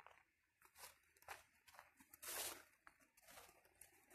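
Near silence, broken by faint scattered clicks and one brief crunch about two seconds in.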